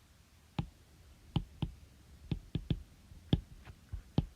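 A series of about nine sharp clicks at irregular intervals, some close together in pairs.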